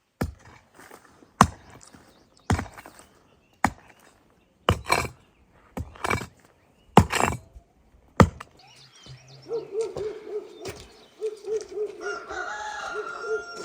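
A series of about eight sharp knocks or chopping blows, roughly one a second. After they stop, a repeated warbling bird call, like a hen clucking, runs on to the end.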